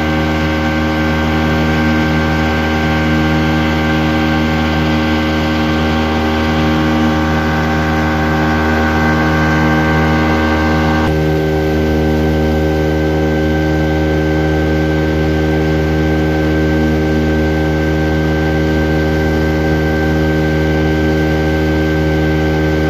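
Outboard motor running steadily at cruising speed, a constant unchanging engine drone with a hiss above it that drops away about halfway through.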